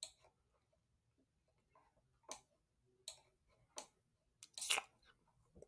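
Faint, sparse computer clicks, about five spread over a few seconds with a slightly louder one near the end, as items are clicked and dragged on screen.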